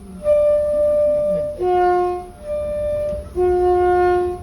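Two-tone train horn sounded in four short, steady blasts, alternating between a lower and a higher note.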